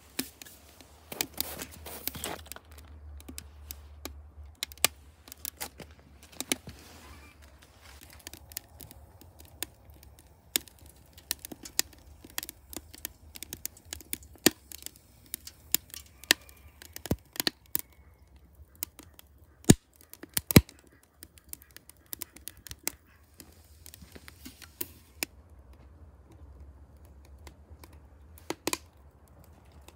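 Split wood burning in a metal bucket, crackling and snapping irregularly over a low steady rumble, with two louder snaps about two-thirds of the way through.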